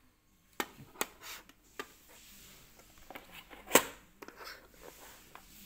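A string of light clicks and knocks as a Xiaomi Wowstick electric screwdriver and its ribbed plastic case are handled and set down on a cutting mat. One sharper knock stands out nearly four seconds in.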